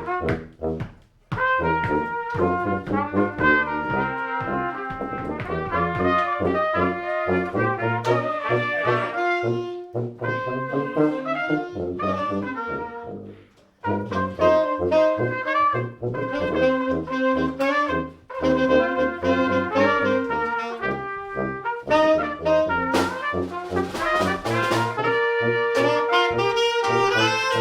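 A brass band playing live: trumpets and trombones in ensemble, a full stream of rhythmic notes broken by a few brief pauses.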